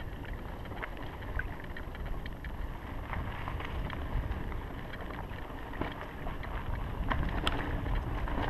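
Mountain bike riding a dirt singletrack: a steady rush of wind on the microphone and tyre noise, with scattered sharp clicks and rattles from the bike over bumps.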